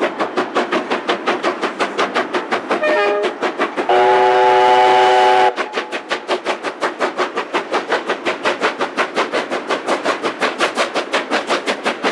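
Steam locomotives working hard up a steep grade with a heavy freight train: rapid, even exhaust beats, about six a second. The whistle gives a short toot about three seconds in, then a loud chime blast of about a second and a half starting about four seconds in, after which the exhaust beats continue.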